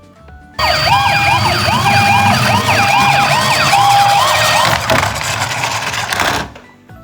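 Toy ambulance's electronic siren sounding: a fast, repeating rising-and-falling wail broken by a few held notes, over a rumbling noise. It starts suddenly about half a second in and cuts off near the end.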